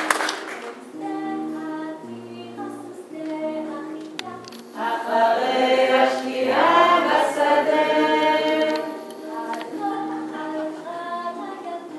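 Group singing a melody of held notes, swelling into a louder, fuller chorus of many voices about five seconds in and easing off again about nine seconds in.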